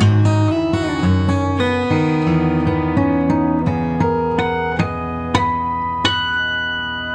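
Instrumental background music: picked acoustic guitar notes and chords. Near the end a few sharply plucked notes ring out while the music slowly fades.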